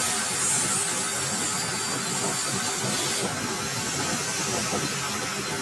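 Metal lathe running with a cutting tool taking a cut across the face of a spinning metal disc. The cut makes a steady hiss, which grows a little brighter about three seconds in.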